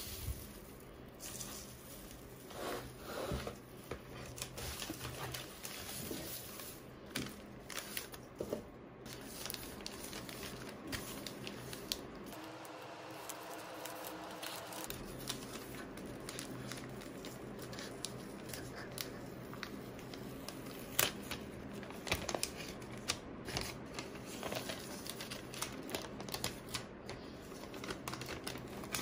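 Paper rustling and crinkling as hands sort through shredded-paper box filler and handle a paper-wrapped parcel, with irregular clicks and some tearing as the paper wrapping is opened.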